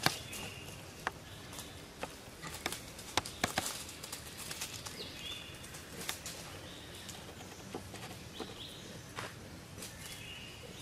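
Scattered crackles and light steps on dry leaf litter, with a few short high chirps now and then over a faint outdoor background.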